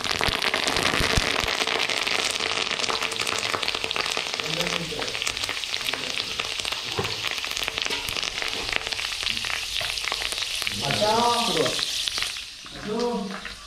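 Fresh curry leaves dropped into hot frying oil set off a loud, crackling, spattering sizzle that starts at once and eases somewhat near the end.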